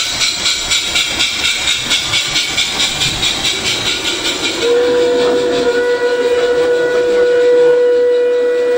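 A G-scale model train rolling along its track with an even clicking of wheels over rail joints, about three a second. About halfway through, a long steady steam-whistle sound starts and holds on.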